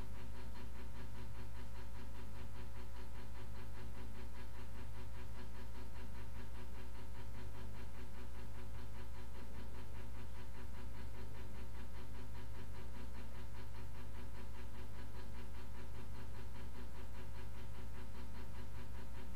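Steady low hum with a few faint held tones and a light hiss: electrical and room noise picked up by the camera's microphone.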